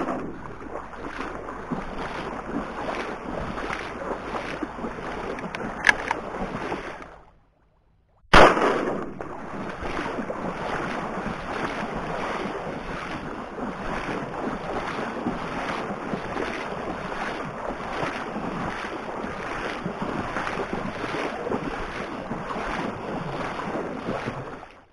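Steady sloshing and splashing of water, in even strokes about twice a second, from moving through a reedy marsh. The sound stops for about a second, then a single loud shotgun shot rings out, and the sloshing resumes.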